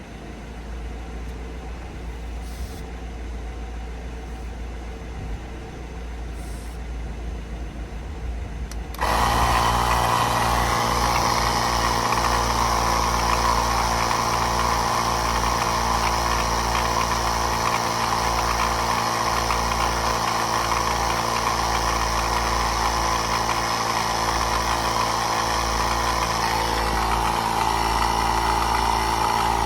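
Low wind rumble on the microphone, then about nine seconds in a portable tire-inflator compressor switches on and runs steadily with a loud, even buzz, pumping the spare tire up toward 60 PSI.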